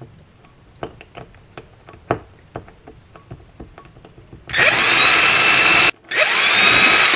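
Power drill with a 1.5 mm bit drilling a hole through a model railway baseboard: a few light clicks and taps, then two runs of the drill about four and a half seconds in, with a brief stop between them. Each run starts with a rising whine as the motor spins up.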